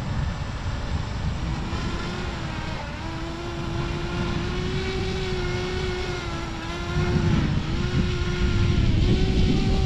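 Quadcopter drone's propellers whining, the pitch stepping up and down as it manoeuvres, over heavy wind buffeting the microphone.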